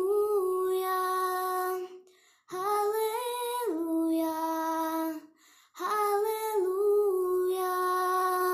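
A girl singing a Hindi Christian worship song unaccompanied. She sings three long, sustained phrases with short breaths between them; the second phrase steps down in pitch partway through.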